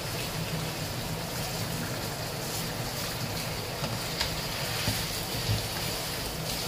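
Mutton pieces sizzling in a kadhai over a low gas flame, a steady frying hiss, with a few light knocks of the wooden spatula as the meat is stirred and browned.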